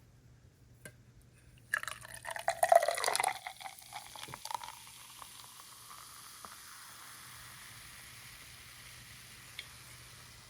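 Beer poured into a glass, gurgling for about a second and a half, then the foam fizzing in a steady hiss.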